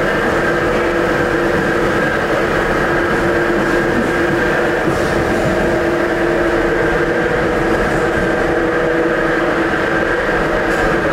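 Ezh3 metro car running on the line, heard from inside the car: a steady rumble with several constant whining tones held throughout.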